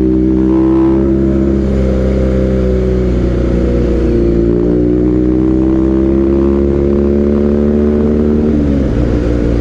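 BMW R nineT's boxer twin running through a Villan aftermarket exhaust while riding. The engine note dips slightly, climbs gradually over several seconds, then falls away near the end as the throttle is rolled off.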